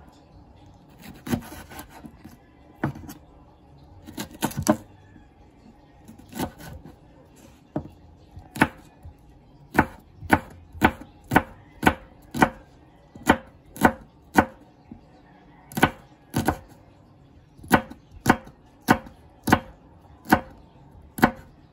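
Pure Komachi HD kitchen knife slicing a green chile on a plastic cutting board: sharp knocks of the blade on the board. The knocks come irregularly at first, then settle into a steady run of about three cuts every two seconds from about eight seconds in.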